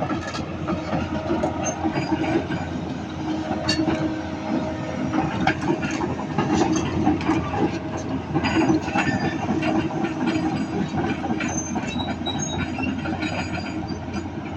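Volvo EC360BLC crawler excavator travelling on its tracks: the diesel engine runs steadily under hydraulic load while the steel tracks clank and rattle continuously. It is a travel test after the hydraulic pump oil flow was adjusted, with both tracks now driving evenly so the machine goes straight.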